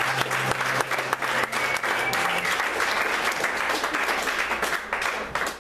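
Audience applauding with many hands clapping.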